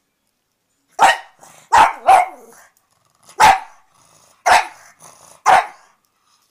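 Pug barking six short, sharp barks, the second and third close together, with pauses of about a second between the others.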